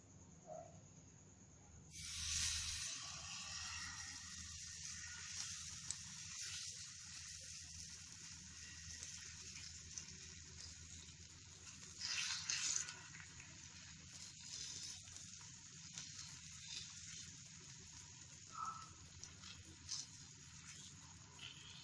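Buckwheat-flour (kuttu) batter sizzling in hot oil in a frying pan. The hiss starts suddenly about two seconds in as a ladleful of batter goes in, then carries on steadily with light crackles while the ladle spreads it. It swells again briefly about halfway through.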